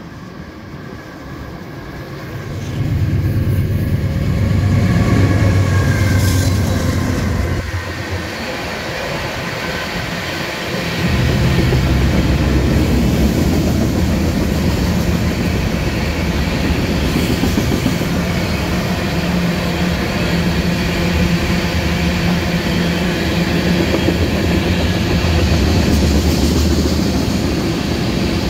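Freight train with diesel locomotives and a long string of covered hopper cars passing close by: a steady, loud rumble of engines and wheels on the rails. It swells about three seconds in and again about eleven seconds in.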